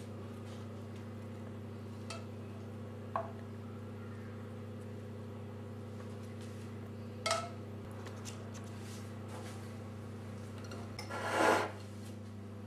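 Metal spoon clinking a few times against the pot and metal baking tray as tomato sauce is spooned and spread over a layer of eggplant, with a louder short scrape near the end. A steady low hum runs underneath.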